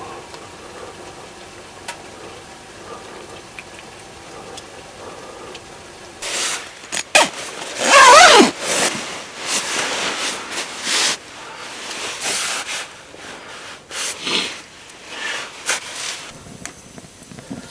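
A run of short scraping and knocking sounds from things being handled. The loudest, about eight seconds in, is a squeal whose pitch wavers up and down.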